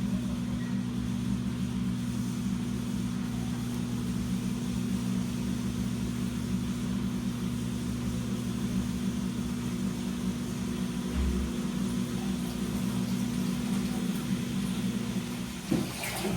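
Washing machine running: a steady motor hum with a noisy churning wash over it. Near the end the hum briefly drops and there is a sharp click.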